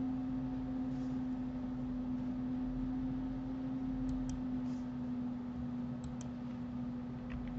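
A steady hum with a few faint computer-mouse clicks, in pairs about four and six seconds in.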